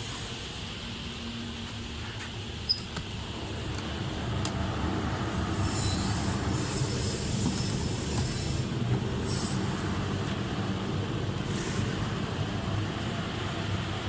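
Steady hum and rush of air from a heat pump wood-drying kiln's fans and compressor, getting louder about four seconds in as the chamber is opened up. A single sharp click comes about three seconds in, and there are brief high squeals in the middle.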